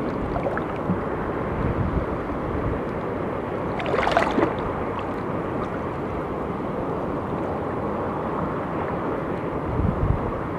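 Wind buffeting the microphone over shallow sea water washing across a reef flat, with a brief louder rush about four seconds in.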